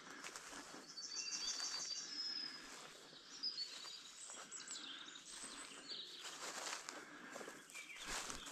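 Wild songbirds singing in open country: a fast, high trill about a second in, followed by scattered high chirps and calls. A brief rustling sound comes near the end.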